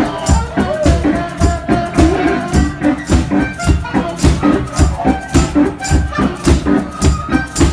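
A live band playing a song with a steady, even beat, low drum hits and high percussion strokes pulsing throughout under sustained melodic lines.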